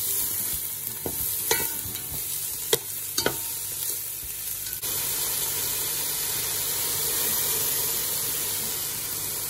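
Chopped onions and garlic sizzling in hot olive oil in a stainless steel pot while being stirred, with a few sharp clicks of the utensil against the pot in the first half. About halfway through, the sound changes abruptly to a smoother, steadier sizzle.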